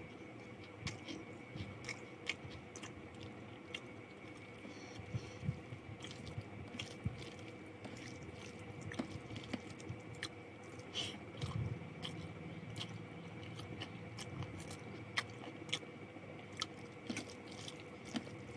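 Close-miked chewing and eating of rice with chicken curry and fried potatoes: irregular wet mouth clicks and smacks, with a crunch now and then.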